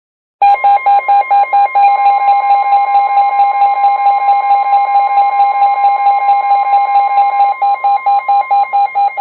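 Weather alert radios going off for a new warning: rapid, loud alarm beeping starts suddenly about half a second in, over the steady 1050 Hz NOAA Weather Radio warning alarm tone. The beeping slows to more spaced-out beeps near the end.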